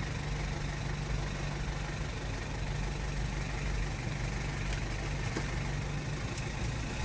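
Car engine idling at a standstill: a steady low hum.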